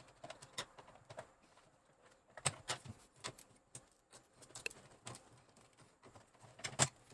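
Plastic keyboard case being pried apart at its snap-fit clips, giving scattered sharp clicks and knocks at an irregular pace, the loudest pair near the end.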